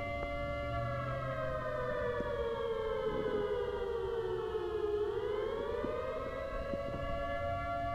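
Siren tone of a mock emergency alert: a steady two-note wail that slowly slides down in pitch for about four seconds, then swings back up and holds steady again.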